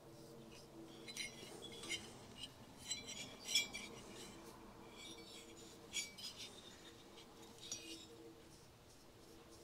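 Light, irregular metallic clinks and scrapes from a small metal-handled brush knocking against the bore and port edges of an aluminium two-stroke motorcycle cylinder while layout bluing is brushed into the ports. The sharpest clink comes about three and a half seconds in, over a faint steady hum.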